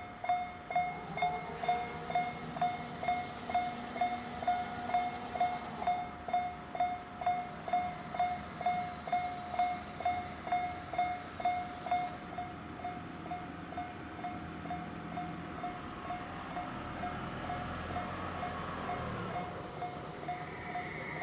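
Japanese railroad crossing warning bell ringing with an even beat of about two strikes a second, the crossing's odd-sounding bell. About halfway through the strikes grow fainter as the rumble of an approaching train rises.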